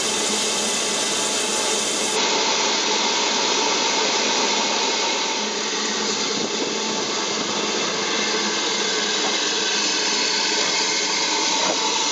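Steady hiss of escaping steam from a BR Standard Class 9F steam locomotive, with no exhaust beat.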